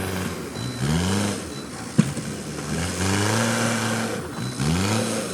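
Backhoe loader's diesel engine revving up three times under load, with a sharp knock about two seconds in.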